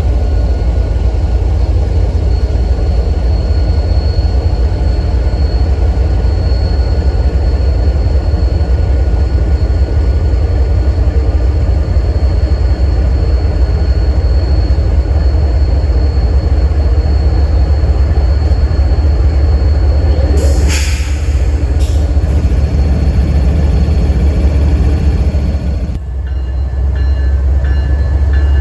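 Florida East Coast Railway freight train running past with a steady, heavy rumble, with a short hissing burst about twenty seconds in.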